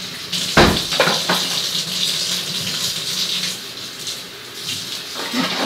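Kitchen tap running in a steady hiss, with a few sharp knocks of kitchenware about a second in.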